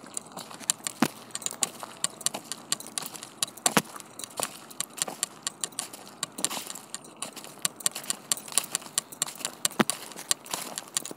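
Footsteps crunching over dry fallen leaves and gravel, with trekking pole tips clicking and scraping on the ground in an uneven walking rhythm.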